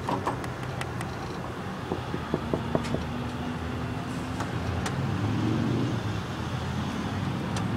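A vehicle engine idling steadily, with a run of light clicks and knocks about two to three seconds in.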